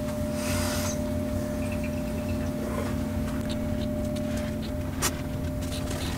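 Stirling synthetic shaving brush being swirled in a tub of shave soap and then onto the face, giving soft wet brushing and faint clicks, with one sharper click about five seconds in. A steady low hum runs underneath.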